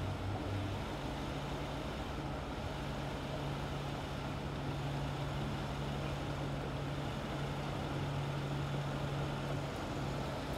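Car engine running at a steady low speed, a constant low hum over an even rumble as the Mercedes Concept S-Class Coupé rolls slowly along.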